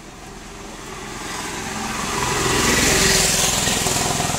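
A motor vehicle passing by: its engine grows louder to a peak about three seconds in, then fades.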